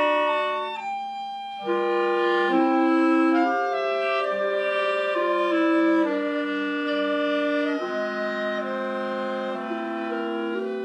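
A quartet of four clarinets playing a movement in held chords, the parts moving from note to note together. The sound dips briefly about a second in, comes back in strongly, and grows quieter after about six seconds.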